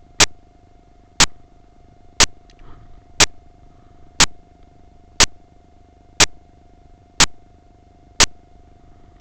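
Sharp metallic clicks, evenly spaced exactly once a second, like a ticking mechanism, over a faint steady hum.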